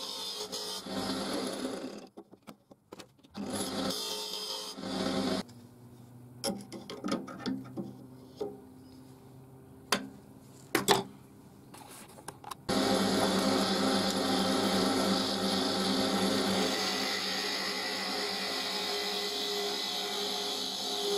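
A wood lathe runs with its steady hum while a turning gouge shaves a green hazel spindle, giving a hissing cutting noise that comes and goes. There are a few sharp knocks in a quieter stretch midway. From a little past halfway the cutting goes on steadily.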